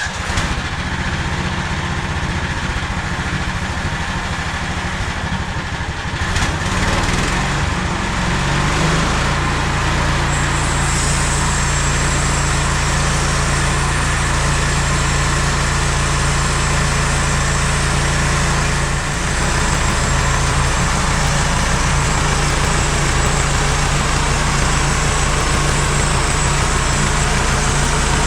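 MechMaxx SM32 portable band sawmill's engine running steadily. About eight seconds in it revs up to a higher speed, and a thin high whine joins from about ten seconds in.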